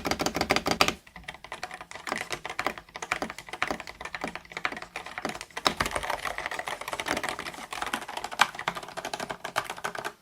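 Typing on an 8BitDo Retro Mechanical Keyboard M Edition fitted with Akko Rosewood switches: rapid, dense keystrokes for about the first second, then slower, irregular key presses.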